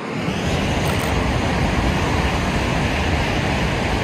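Shinkansen bullet train passing at high speed: a sudden loud rush of air and rolling noise that swells over about half a second and then holds steady.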